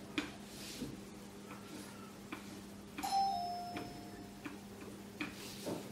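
Handheld eraser wiping marker off a whiteboard in short strokes, heard as faint scattered rubs and knocks. About three seconds in, a brief ringing chime sounds, dipping slightly in pitch and fading over about a second.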